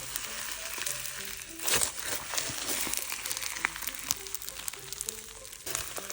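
Snow fizz slime squished and poked by hand, a dense crackling and fizzing with many tiny pops, a louder squish near two seconds in. Soft background music plays underneath.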